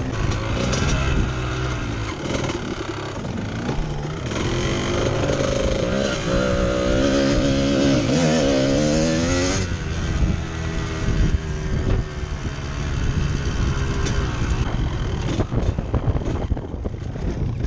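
Trail motorcycle engine working under load, revving up and down. A long rising pull about six to ten seconds in cuts off suddenly as the throttle shuts. Scattered knocks follow near the end.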